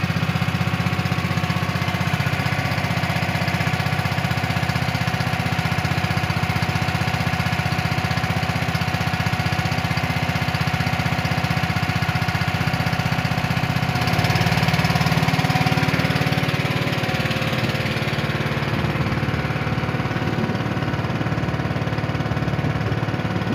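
Small boat engine running steadily as the wooden boat travels across the water, growing a little louder about two-thirds of the way through.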